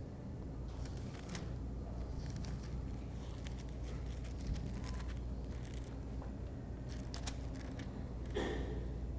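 Paper pages rustling and being turned, with scattered crinkles and soft scrapes, over a steady low hum.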